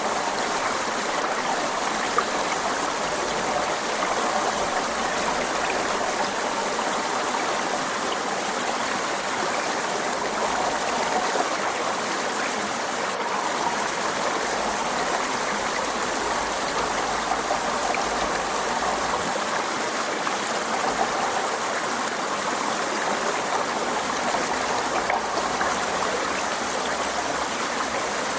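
Forest stream running over rocks: a steady, even rush and babble of flowing water.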